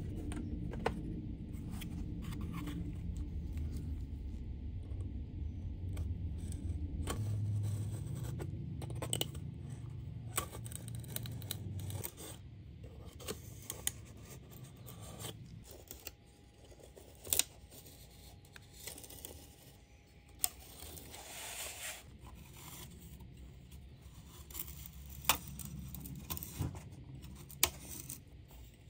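Hobby knife blade drawn along a steel ruler, slicing excess balsa wood off a wing spar in repeated short scraping cuts, with a few sharp clicks of the blade and ruler. A low background hum stops about twelve seconds in.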